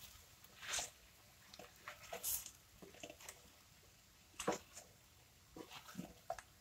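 A silicone spatula stirring butterbeans and chopped vegetables in a stainless steel pan: irregular soft squelches and scrapes, with a sharper knock about four and a half seconds in.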